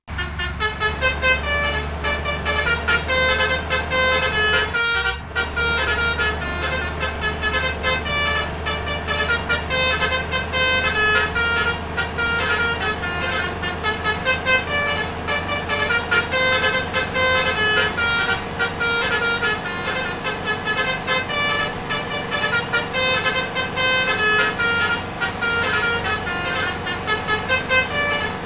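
Bus telolet 'basuri' musical air horn playing a rapid melody of short changing notes, over a steady low hum.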